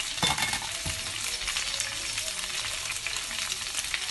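Oil sizzling in a wok around steamed rice-flour dumplings and a mustard-seed tempering, with steady light crackling and a couple of soft knocks in the first second.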